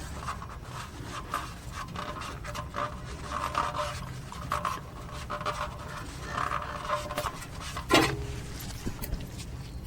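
Wiping down by hand, a run of irregular rubbing and scraping strokes, with a sharp click about eight seconds in.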